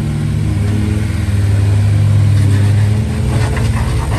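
Rock buggy's engine running at a steady low pitch under light throttle as it crawls up a boulder ledge, with its note wavering slightly.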